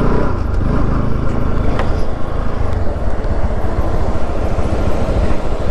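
Bajaj Pulsar RS200's single-cylinder engine running steadily under way, under a heavy rush of wind and road noise on the microphone.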